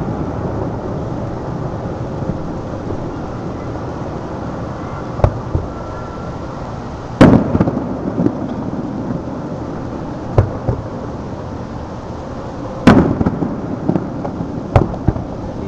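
Aerial fireworks shells bursting at a distance: scattered booms, the two loudest about seven and thirteen seconds in, each trailing off in a rumble, with several fainter pops between.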